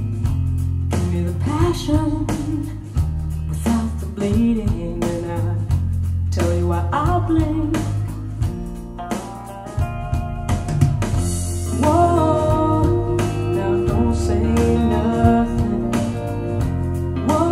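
Song with a woman singing over guitar, bass and a drum kit, played back through Pioneer TAD S-1EX loudspeakers as a sound sample of the system.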